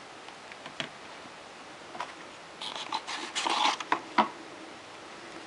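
Hands handling the box and its packaging: a few light clicks, then about two seconds of rustling and crackling with a last click near the end.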